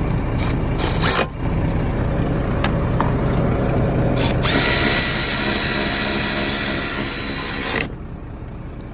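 Power drill driving the seat's mounting bolts: a couple of short runs about a second in, then one steady run of about three seconds that stops suddenly as the bolt is tightened.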